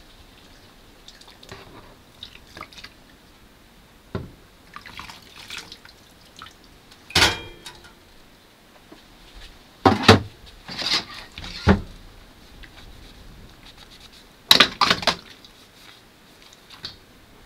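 Dishes washed by hand in a stainless steel bowl of soapy water: faint splashing and rustling, broken by a few sharp clatters of dishes knocking on the bowl, one of them ringing briefly.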